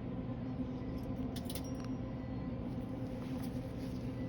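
Steady hum of a portable dental unit running, with a few faint clicks of a metal condenser packing amalgam into the tooth about a second and a half in.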